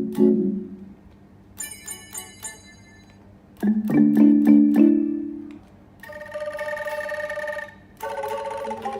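Roland GR-20 guitar synthesizer played from a guitar, recorded on a phone's microphone: a few plucked notes, then a short run of bright bell-like tones about two seconds in and a louder plucked chord near the middle. From about six seconds, held synth tones take over, changing notes near the end.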